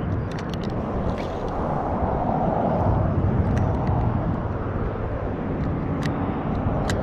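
Steady highway traffic noise, swelling as a vehicle passes about two to three seconds in, with a few light clicks.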